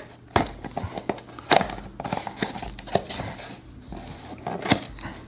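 Small cardboard product box being opened by hand: irregular sharp knocks, taps and scrapes of the cardboard flaps and packing, with light rustling between.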